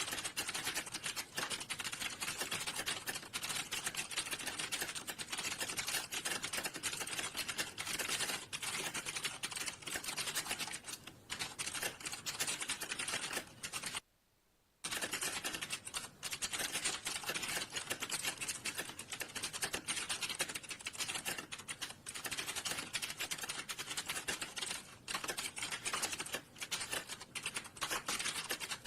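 Fast, continuous typing on a computer keyboard, a dense run of key clicks that stops for under a second about halfway through.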